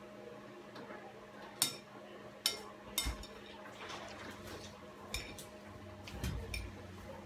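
Training chopsticks clinking against a ceramic plate as a child picks up noodles: several sharp, irregular clinks, with a faint steady hum underneath.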